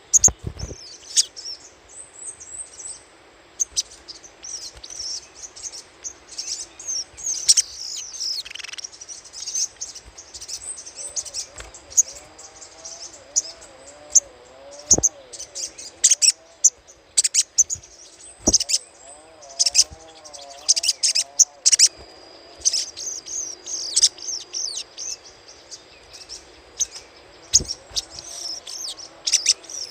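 Little spiderhunter (sogok ontong) giving rapid, high-pitched chattering calls, many short sharp notes one after another, as used for a bird lure. A lower wavering warble sounds for about ten seconds in the middle.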